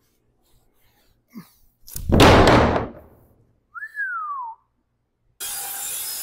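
A sheet of OSB plywood drops flat onto a wooden floor frame with a loud slap about two seconds in. A short falling whistle follows. Near the end a Craftsman circular saw starts cutting through the OSB with a steady, even cutting noise.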